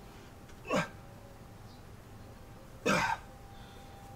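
Two short, forceful exhalations from a man, about two seconds apart, each a breathy grunt falling in pitch: exertion breaths during kettlebell lifts.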